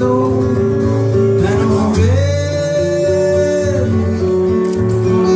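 Live country-bluegrass band: acoustic guitar strumming over a bass line, with a man singing. About two seconds in he swoops up into one long held note.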